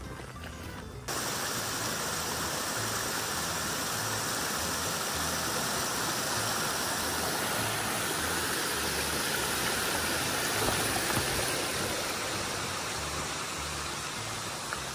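Steady rush of a small mountain stream running over rocks. It cuts in suddenly about a second in and holds nearly level throughout.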